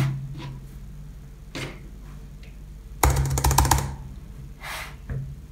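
MacBook Pro keyboard keys clicking in a rapid run lasting under a second, about three seconds in, as a password is typed, over a steady low hum.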